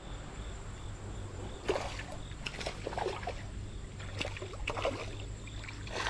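A hooked smallmouth bass thrashing and splashing at the surface close to the bank, in several short scattered bursts, over a steady low background rumble.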